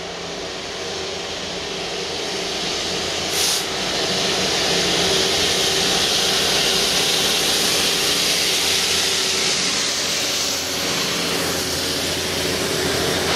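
GB Railfreight Class 66 diesel locomotive, with its EMD two-stroke V12, hauling a rail head treatment train of tank wagons as it approaches and passes. The engine drumming and the rumble of wheels on rails grow louder over the first few seconds, then hold steady under a strong hiss as the locomotive and wagons go by.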